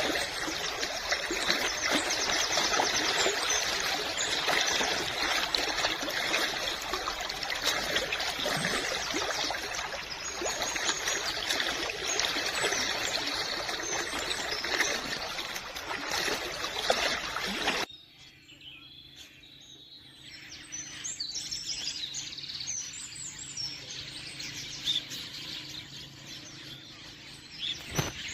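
Running water, a loud steady rushing and trickling, cut off abruptly about two-thirds of the way through. A quieter outdoor background with birds chirping follows.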